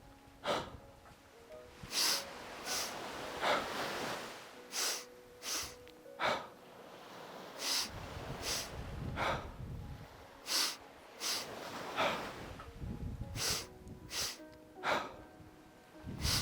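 Rhythmic 'double breath' yoga breathing: two sharp inhales in quick succession, then an exhale, the cycle repeating every few seconds. Soft background music with held tones plays underneath.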